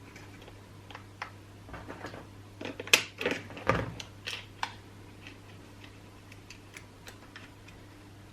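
Clicks and knocks of chainsaw parts being handled and fitted during reassembly, with a cluster of louder knocks about three to four and a half seconds in, over a low steady hum.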